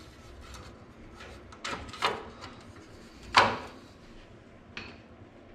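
Metal headlight trim bezel on a 1966 Chevelle knocking and clicking against the headlight surround as it is pushed and settled into place by hand: a few short knocks, the loudest about three and a half seconds in.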